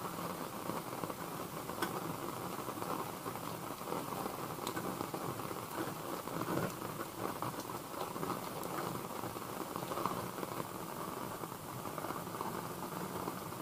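Heavy rain falling on a camper van, heard from inside the cabin as a steady, dull patter, with a few faint sharper ticks.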